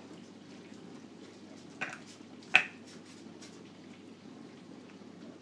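Two short sharp clicks, a faint one nearly two seconds in and a much louder one just after, over a low steady hum.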